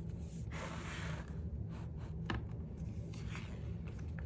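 Paper rustling as a picture book's pages are handled and turned, with a sharp click about two seconds in, over a steady low hum.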